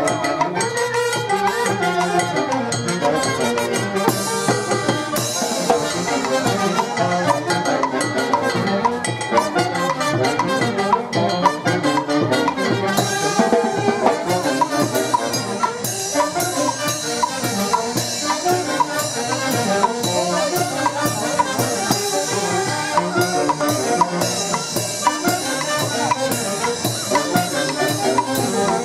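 Brass band of saxophones and horns with drums playing a lively dance tune, steady throughout.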